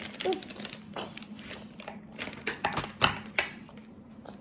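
Light, irregular clicks and taps of a toddler eating at a high-chair tray, with the sharpest clicks about three seconds in.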